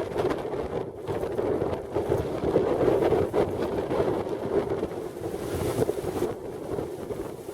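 Strong gusting wind buffeting the microphone, a dense rushing noise with irregular thumps and swells.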